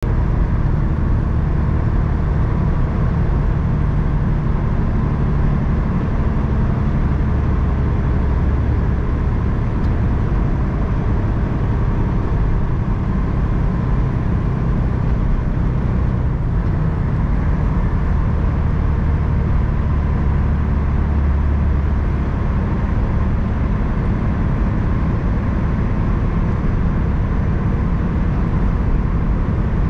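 Semi-truck's diesel engine running steadily with tyre and road noise, heard from inside the cab while driving down the highway.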